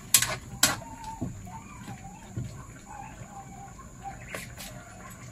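Two sharp clinks of a cooking utensil against a metal wok, about half a second apart, then a few lighter knocks. Through the rest, a bird calls softly with a wavering, repeated call.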